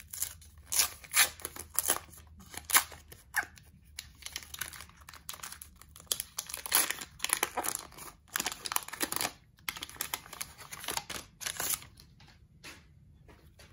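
Baseball card pack wrapper being torn open and crinkled: a run of short, sharp crackling tears.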